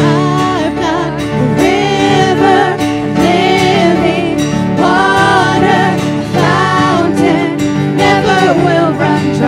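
Live worship band playing a gospel-style song: several voices singing the melody together over acoustic guitar and sustained keyboard chords.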